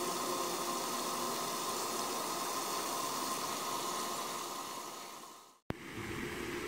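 Steady, even hiss of outdoor background noise. It fades away about five seconds in and ends in a short click.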